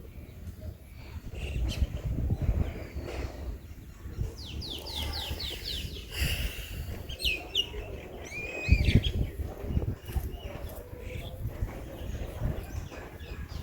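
Songbirds calling: a fast run of about seven descending notes around five seconds in, then several short arched whistles. Underneath runs a low rumbling noise, loudest in a brief surge about nine seconds in.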